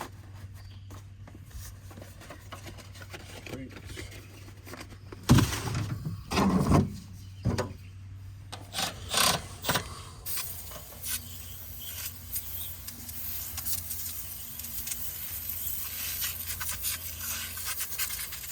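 Several loud rubbing and scraping handling sounds over a low steady hum, then, about ten seconds in, a steady hiss of an aerosol can spraying that carries on to the end.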